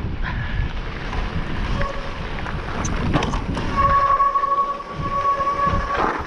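Specialized Levo e-mountain bike rolling fast down a stony gravel trail: tyres and frame rumble and knock over the stones. A steady high squeal from the disc brakes comes and goes, longest from about four seconds in until near the end; the rider had said his brakes were heating up.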